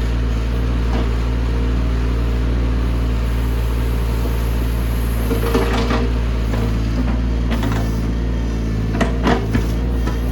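Mini excavator engine running steadily under load, with a few short clanks around the middle and near the end as the machine works the ground.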